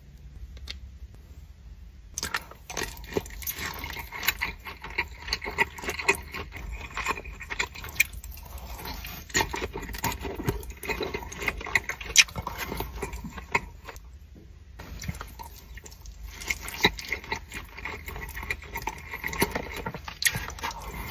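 Close-up eating and food-handling sounds from salmon nigiri: many small irregular clicks, taps and scrapes, with short quieter pauses.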